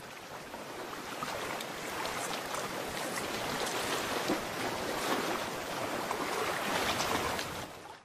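Sea water washing over a rocky shore: a steady wash with faint scattered clicks, fading out near the end.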